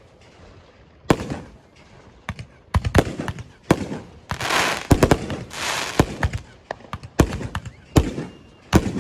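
Fireworks going off: about a dozen sharp bangs at uneven intervals after a quiet first second, with a burst of dense crackling around the middle.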